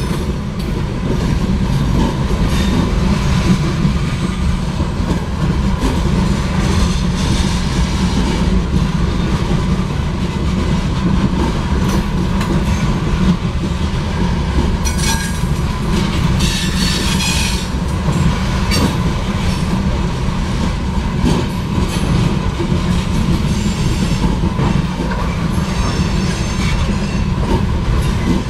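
Loaded coke hopper cars of a freight train rolling past, a steady low rumble with wheels clacking over the rail joints. High-pitched wheel squeal comes and goes, strongest a little past the middle.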